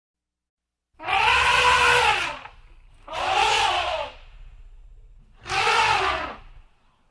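An animal calling three times, each call about a second and a half long, its pitch rising and then falling.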